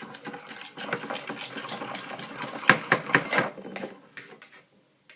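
Glue and shower-gel slime being stirred with borax water, a fast irregular run of scrapes and taps of the stirring utensil against its container, loudest in the middle and stopping about a second before the end.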